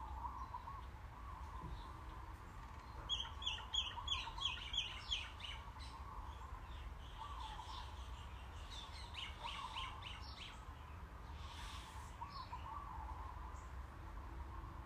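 Birds chirping in the background: quick runs of high chirps, about four a second, a few seconds in and again around nine to ten seconds, over softer repeated warbling notes and a steady low hum.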